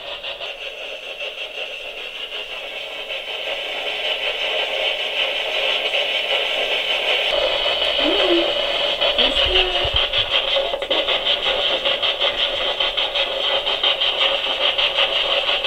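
Spirit box radio scanner sweeping through stations: a steady hiss of static, rapidly chopped, getting louder about halfway through, with a couple of brief voice-like fragments.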